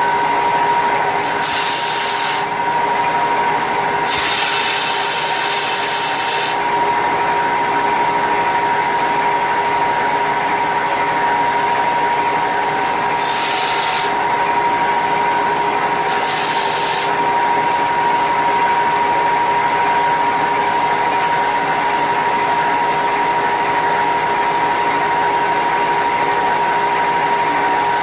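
Handheld power tool, a sander or grinder, running steadily with a constant whine. Four times it gives a short, harsher hiss as it is pressed into the workpiece: twice in the first seven seconds and twice more in the middle.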